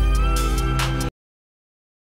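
Background music with a heavy bass, cutting off abruptly about a second in, then silence.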